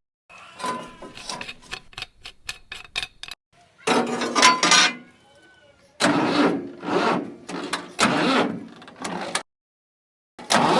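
Small engine being cranked and starting: a run of rapid clicks, then several loud, rough bursts of running.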